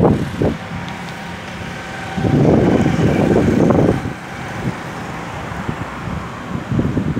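Wind buffeting the microphone in low gusts, strongest from about two to four seconds in and again near the end, over a steady outdoor background noise.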